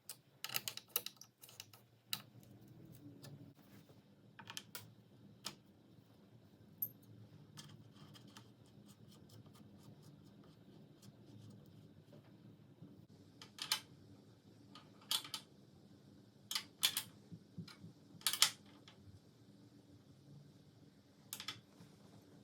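Irregular clicks, taps and light knocks of tools and bicycle parts being handled, coming in small clusters, with the sharpest ones in the second half, over a faint steady hum.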